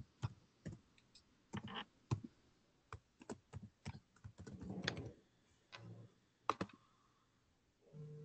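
Computer keyboard typing: irregular, faint key clicks a few per second, heard through an open microphone on the conference call.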